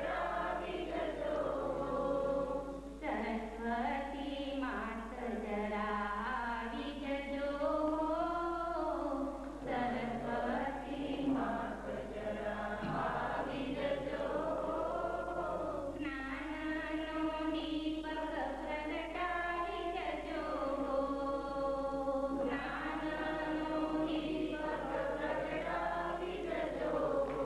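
A group of voices singing a Hindu devotional chant in a slow, unbroken melody, with a steady low electrical hum underneath.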